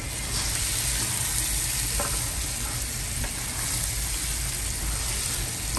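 Prawn masala sizzling in a wok as a wooden spatula stirs it: a steady frying hiss, with a light tap of the spatula about two seconds in.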